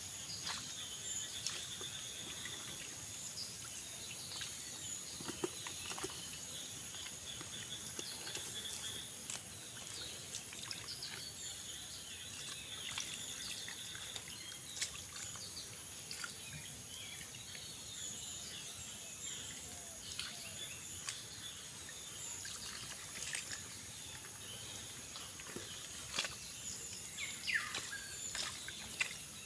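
Small splashes and drips in shallow rainwater among grass as hands grope for and grab fish, over a steady high-pitched chirring of insects and occasional bird calls.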